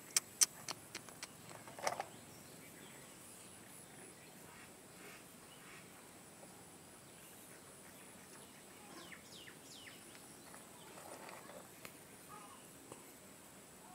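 Quiet outdoor ambience with a handful of sharp clicks in the first second, a brief louder noise about two seconds in, and faint bird chirps from about nine seconds on.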